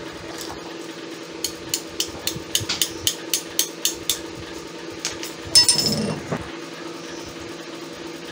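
Metal wrench working the nut on a V-belt pulley's shaft: about a dozen quick metallic clicks at three to four a second, then a louder ringing metal clank a little past halfway.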